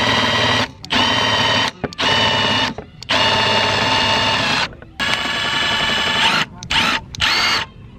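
Milwaukee M18 Fuel cordless drill boring mounting holes through the bumper for a carbon fiber lip. It runs in about seven short bursts with brief pauses, each a steady whine that rises quickly to full speed; the last two near the end are shorter.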